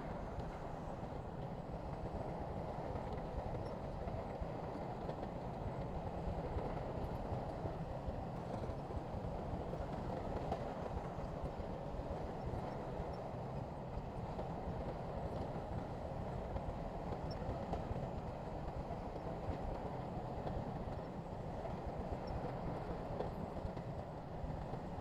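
Heavy diesel earthmoving machinery, likely a bulldozer, running steadily with a continuous low engine rumble.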